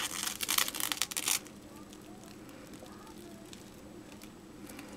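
Plastic wrap crinkling and crackling as it is peeled up off a wet painted canvas, stopping about a second and a half in.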